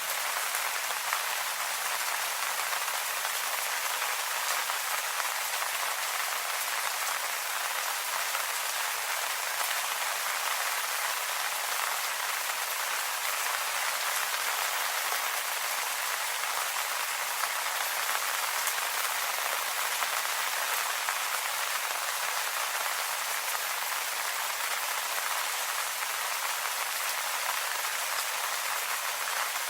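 Steady rain falling on leaves, a dense even patter of drops.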